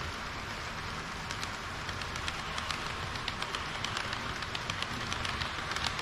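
HO-scale model train (KiHa 40 series railcars) rolling along the track toward the camera, its wheels clicking over rail joints and turnouts. The clicking starts about a second in and comes faster and louder as the train draws near, over a steady hiss.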